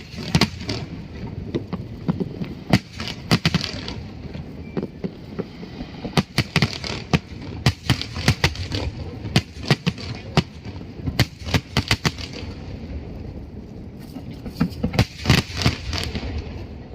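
Fireworks display: many sharp bangs and crackles in irregular clusters over a steady low rumble.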